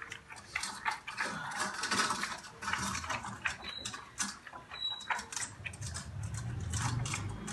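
A dog eating from a steel bowl: irregular clicks and clinks of teeth and tongue against the metal, several a second.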